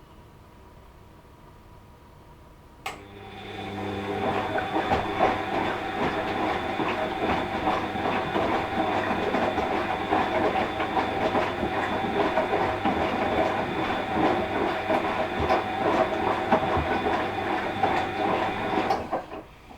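Washing machine in its wash cycle: a click about three seconds in, then the motor turns the drum with a steady hum and dense clattering for about sixteen seconds before stopping abruptly. Before the click only a faint hum is heard.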